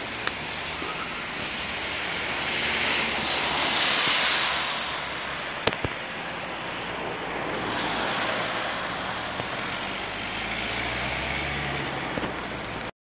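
Irisbus Citelis 12 city bus driving past in street traffic; the tyre and engine noise swells and fades, with the engine's low hum strongest as the bus comes close near the end. A single sharp click sounds near the middle.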